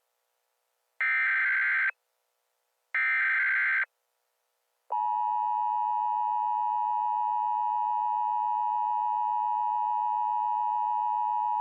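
Emergency Alert System tones: the end of one SAME header data burst, then two more short data bursts about a second apart, then the steady two-tone EAS attention signal starting about five seconds in and holding.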